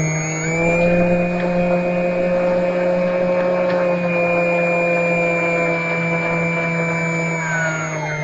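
Electric motor and propeller of an FMS Cessna 182 RC model plane running at a steady cruise throttle, heard from its onboard camera as an even buzzing whine, the pitch dipping slightly near the end.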